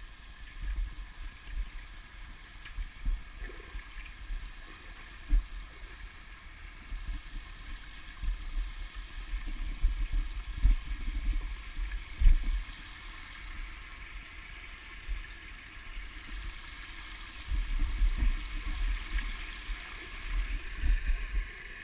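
Small rocky stream babbling steadily over shallow riffles and little cascades, with irregular low rumbles and bumps on the microphone, loudest around ten to twelve seconds in and again near the end.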